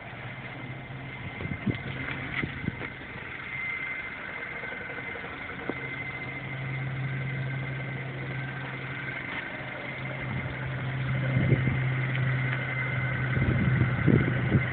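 MINI Cooper S engine idling, with a steady high-pitched whine over the low engine hum; the owner finds the whine odd on a car with under 2,000 miles. A few short knocks and bumps come and go, most near the end.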